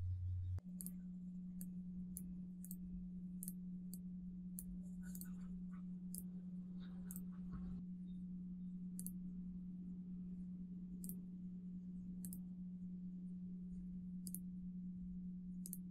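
Computer mouse clicking at irregular intervals over a steady low hum.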